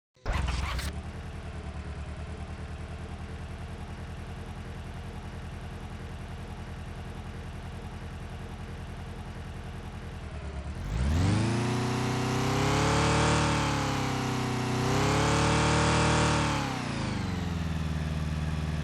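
Four-cylinder car engine catching and idling unevenly, then revved twice and settling back to idle. It is running on only three cylinders: one cylinder is misfiring, from either a fuel injection or an ignition problem.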